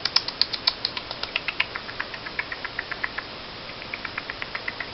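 A cockatiel's beak clicking in a rapid run of small ticks, about eight a second, that pauses briefly about three seconds in and picks up again.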